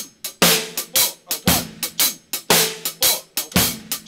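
Drum kit playing a half-time shuffle groove: a steady hi-hat pattern with bass drum, and a louder snare hit on beat three about once a second.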